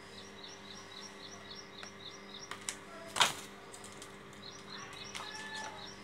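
Baby parrot chirping in a fast series of short, high, evenly spaced chirps, about four a second, pausing and starting again near the end. A single loud knock about three seconds in.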